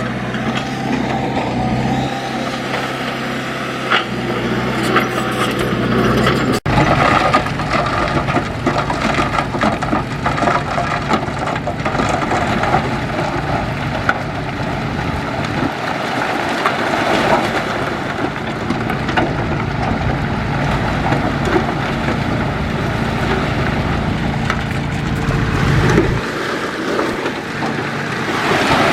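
Diesel engines of heavy earthmoving machinery running under work, with knocks and rattles. The sound changes abruptly about six and a half seconds in, and the low engine note drops away near the end.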